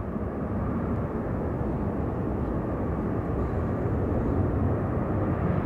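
Airbus A380's four jet engines running at taxi thrust as the airliner taxis: a steady low rumble.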